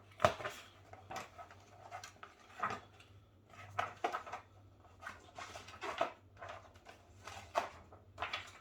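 Snack packaging being handled and turned over: scattered taps, clicks and crinkles, about one or two a second.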